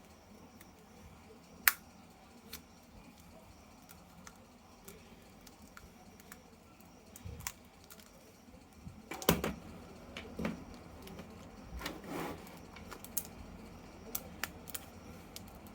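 Scattered sharp plastic clicks and light knocks, typical of plastic action figures and their packaging being handled, with one sharp click near the start and a few knocks clustered about two-thirds of the way through.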